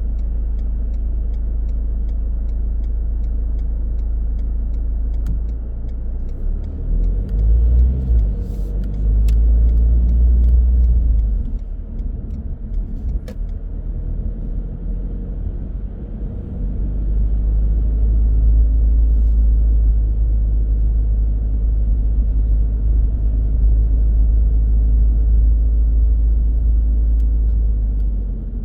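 Car being driven, heard from inside: a steady low rumble of engine and tyre noise that swells about eight seconds in and again from about halfway through. A faint regular ticking, about three a second, runs under it at the start and stops about six seconds in.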